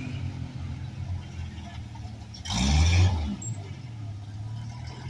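Off-road vehicle's engine running at low revs under load on a rock climb. It revs hard once, for under a second, about two and a half seconds in, then drops back.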